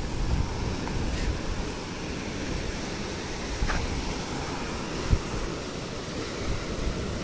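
Choppy estuary water washing and breaking against the rocks and jetty, with wind buffeting the microphone. A single short thump about five seconds in.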